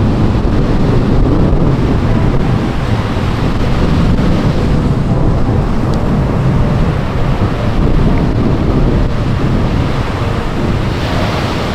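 Wind buffeting the microphone over the steady wash of surf on a beach, loud and unbroken.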